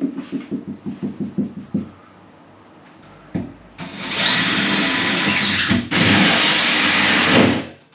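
Cordless drill running a hole saw through the plasterboard ceiling: about four seconds in it starts a loud cut with a steady whine, breaks off for an instant near six seconds, then runs on to just before the end. Before that comes a quick run of light knocks.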